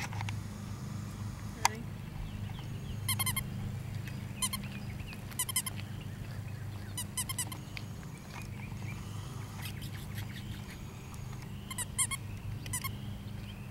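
Short bursts of high-pitched animal calls, each a quick run of repeated notes, coming several times over a steady low hum. There is one sharp click about a second and a half in.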